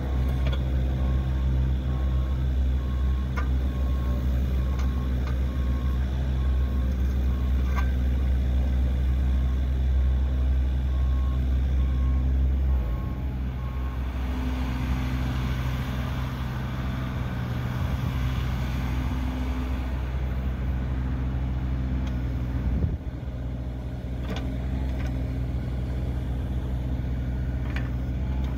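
Yanmar B2-5 mini excavator's 1.1 L three-cylinder diesel running steadily under hydraulic work, its note dropping and changing about halfway through. An evenly spaced alarm beep sounds over it for the first half, then stops, and a few sharp metal clanks come from the working gear.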